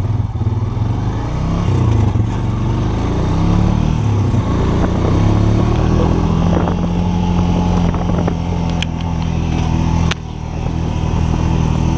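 Off-road vehicle engine running under load on a rough trail. Its pitch rises and falls with the throttle for the first half, then holds steady at a cruise, with a brief dip about ten seconds in.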